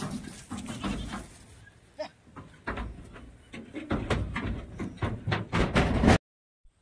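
Goats bleating, mixed with rustling and knocks; the sound cuts off abruptly about six seconds in.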